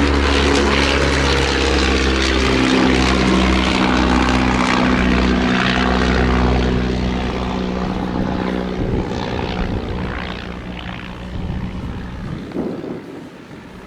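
Vintage biplane's piston engine and propeller running steadily at display power as it passes close, then fading away from about seven seconds in, with the engine note gone by about nine seconds.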